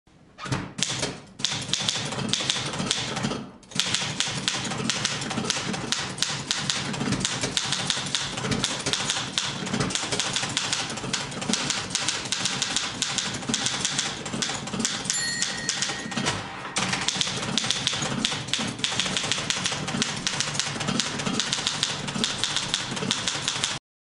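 Manual typewriter typing quickly, a rapid run of key strikes with a brief pause about three and a half seconds in. About fifteen seconds in the line-end bell rings once, followed by a short break in the typing, then the typing goes on and cuts off abruptly near the end.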